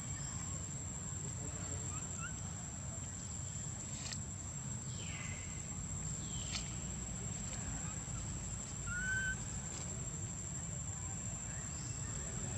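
Outdoor ambience: a steady high-pitched insect drone over a low rumble, with a few short bird chirps and whistles, one about halfway and one later on.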